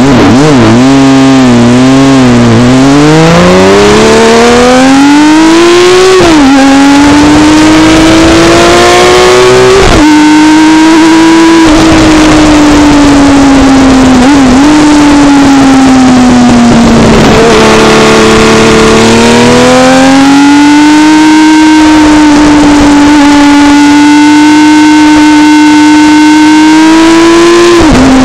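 Honda CBX motorcycle engine heard from an onboard camera while riding: it revs hard up through the gears with two sharp drops in pitch at the upshifts in the first ten seconds, eases off and falls slowly through the middle, then pulls and climbs again near the end. Heavy wind rush on the microphone runs under the engine.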